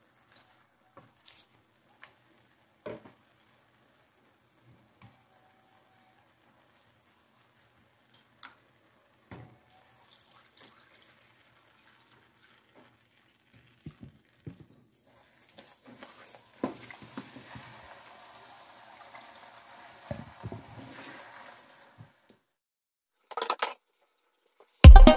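Liquid poured from a pot into a wide pan of rice, splashing and trickling for about five seconds, after faint scattered taps of a wooden spoon against the pan. Loud electronic music starts right at the end.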